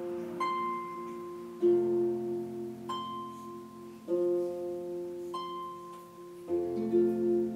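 Lever harp played solo: plucked notes that ring on, with a low chord about every two and a half seconds and a single high note struck between each pair.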